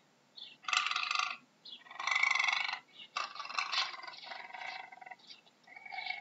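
Puma (cougar) calling: a series of short, high-pitched calls with pauses between them. The loudest comes about two seconds in, and a longer broken run of calls follows before the last one near the end.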